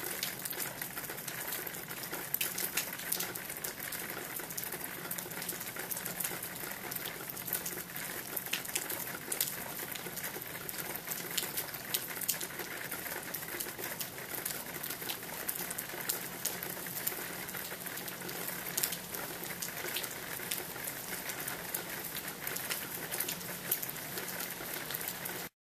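Steady rain falling, with many sharp ticks of individual drops striking close by scattered through it. It cuts off suddenly at the very end.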